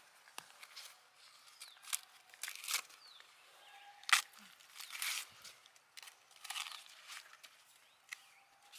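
Irregular rustling and crunching of plant leaves or husks being handled, with a few sharp snaps, loudest about four seconds in.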